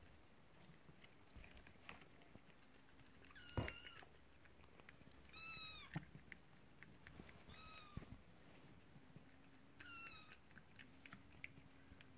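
Hungry three-week-old kittens mewing: four thin, high-pitched cries a couple of seconds apart, each bending up and then down in pitch, with a single knock about three and a half seconds in.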